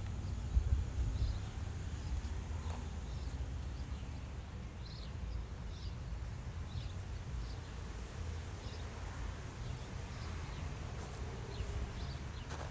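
Outdoor ambience: a steady low wind rumble on the microphone with faint, scattered high chirps.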